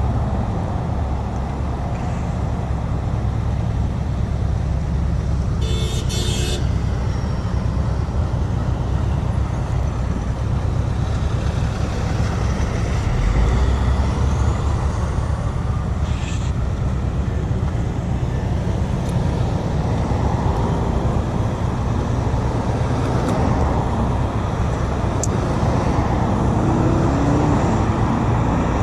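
Steady road traffic: cars passing on a busy street, engine and tyre noise. A short car horn honk sounds about six seconds in.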